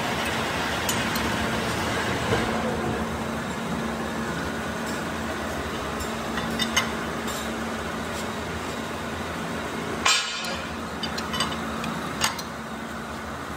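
Hydraulic press machine running with a steady hum and noise, with a few light metallic clinks and one loud metal clank about ten seconds in.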